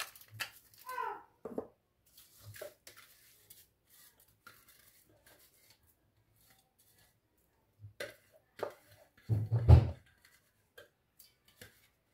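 Plastic spatula scraping a wet chopped vegetable mix out of a plastic food processor bowl, with scattered taps and knocks of the bowl and spatula. The loudest is a knock with a dull thud a little before ten seconds in.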